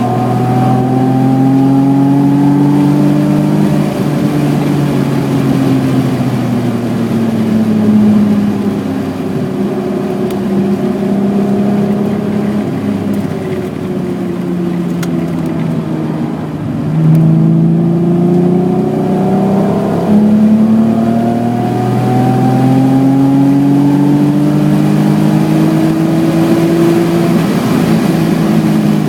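BMW E28's 3.6-litre straight-six engine working hard at track speed: the revs climb for the first few seconds, fall away as the car slows, then about halfway through they drop low and build again, stepping up through gear changes and climbing steadily near the end.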